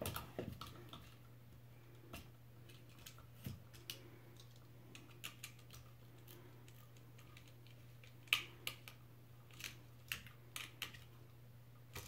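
Faint scattered clicks and taps of a plastic wall outlet and its wire being handled while the white wire is fitted into the outlet's back terminal, over a steady low hum.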